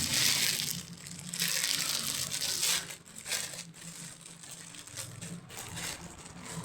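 Packaging crinkling and rustling in irregular bursts as a parcel is handled and opened by hand, busiest in the first few seconds.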